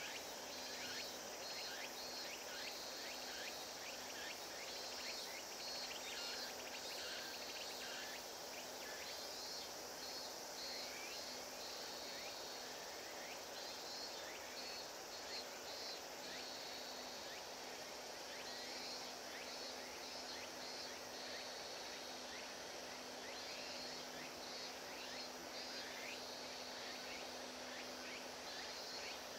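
Outdoor ambience of insects chirping in repeated short bursts of rapid high pulses, over a steady low hum.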